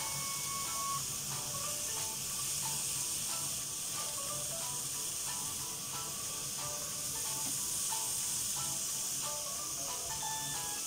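Green beans and garlic sizzling in a hot frying pan: a steady, even hiss of oil frying. Light background music with short melodic notes plays over it.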